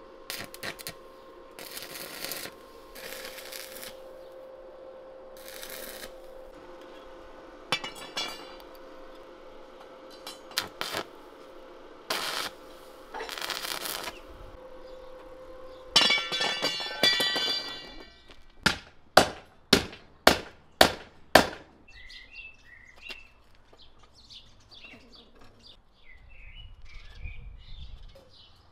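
Stick welding of steel rebar: a steady electrical hum with several short bursts of crackling arc. Then about seven sharp metal strikes in quick succession, followed by birds chirping.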